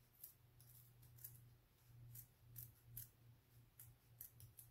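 Scissors snipping through a bear hair arrow rest pad in a quick, irregular series of faint snips, about ten in all, over a steady low hum.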